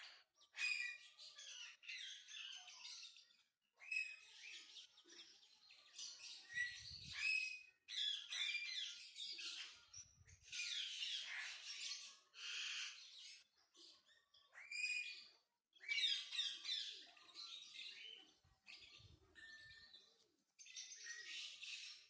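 Mynas at the nest chirping in bouts of rapid high calls, each a second or two long with short pauses between.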